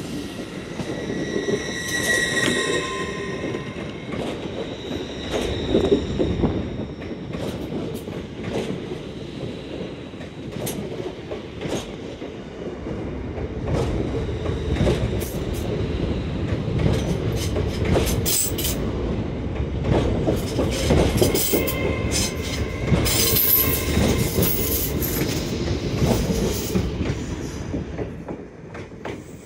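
LNER Azuma (Hitachi Class 800-series) train pulling out and rolling past close by, with wheels clicking over rail joints and pointwork. A high wheel squeal sounds near the start and again past the middle. The sound fades near the end as the train draws away.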